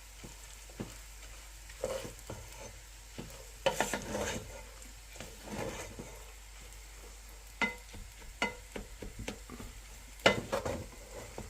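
Rice stir-frying in a pan: a steady sizzle, with a utensil scraping and knocking against the pan several times, loudest about four seconds in and again near the end.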